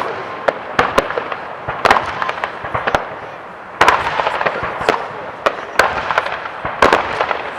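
Aerial fireworks going off: rapid cracks and bangs in dense clusters over a continuous crackling, with the loudest flurries about two seconds in and again about four and seven seconds in.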